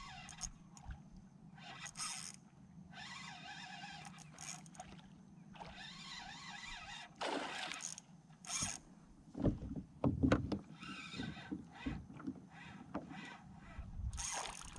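Fishing reel being cranked in short spells with pauses between them, as when working a jerkbait, with a few knocks about ten seconds in.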